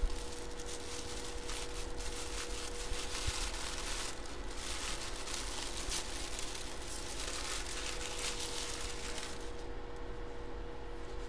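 White wrapping paper crinkling and rustling as it is pulled off a baseball by hand, dying down about nine seconds in.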